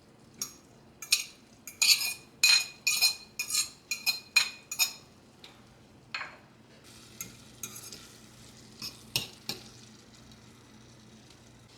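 A metal utensil clinking and scraping against a pot or bowl while stirring: a quick run of about a dozen ringing clinks over the first five seconds, then a few fainter taps.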